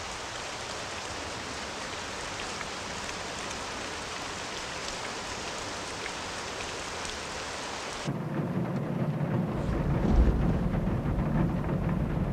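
Steady hiss of heavy rain falling on a car. About eight seconds in it gives way abruptly to a louder, low rumble of thunder and muffled rain, with a deep thud about ten seconds in.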